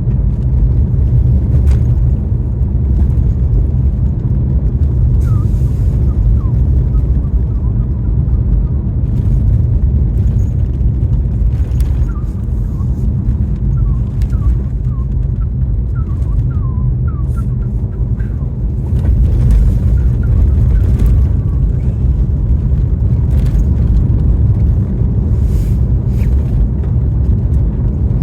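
A car driving in a snowstorm: a steady low rumble of road and wind noise, with scattered faint clicks and short squeaks.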